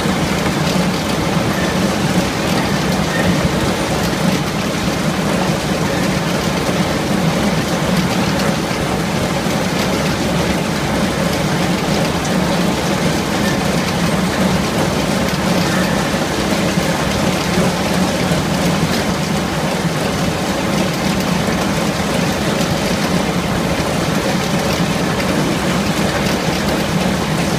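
Mario oblique-disc soil remover for endive roots, mounted on a hopper, running steadily. There is a constant low hum under a dense, even rattle from the rollers and discs.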